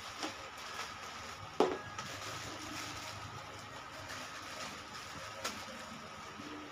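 Faint handling noises as a fabric-covered spring snake is pushed back into a prank chip can: a few short clicks, the sharpest about a second and a half in, over a low steady hiss.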